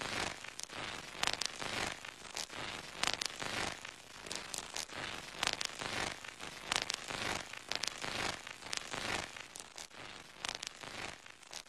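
Continuous irregular crackling, with sharp snaps several times a second over a hissing background.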